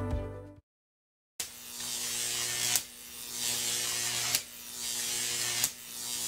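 Glitch-style intro sound effect: an electrical buzz with hum and static hiss that swells and is cut by a sharp click about every second and a half. It starts after music fades out and a short gap of silence about a second in.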